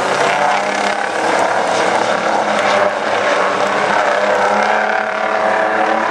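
Several racing semi-truck diesel engines running together on the track, their overlapping engine tones loud and steady.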